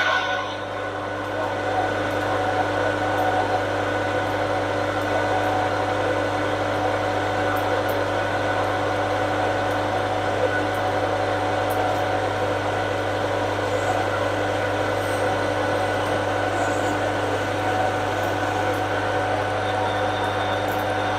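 Metal lathe running steadily with a low motor hum and several steady tones, turning a steel shaft while a light 0.1 mm finishing cut is taken.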